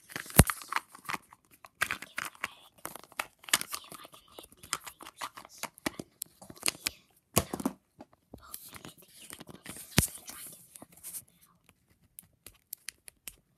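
Close crinkling, rustling and tearing of toy packaging, full of irregular small clicks and taps, with one sharp knock about half a second in; the handling thins to a few scattered ticks near the end.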